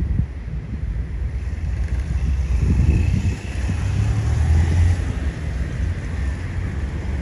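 Low, steady rumble of a freight train rolling away on the track, with wind buffeting the microphone.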